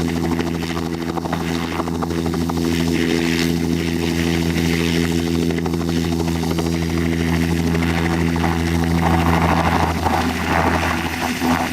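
Bell 206L-4 LongRanger helicopter running at takeoff power: a steady, loud buzz from the rotor and turbine, holding one pitch. Near the end the sound starts to thin out.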